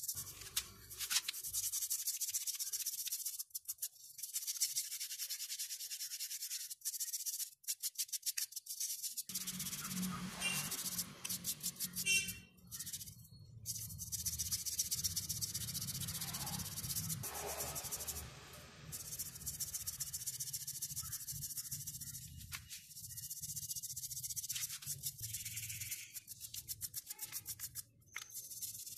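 Toothbrush scrubbing the wet, soapy bristles of an old paint brush: quick back-and-forth scratchy strokes in runs, with a few short breaks.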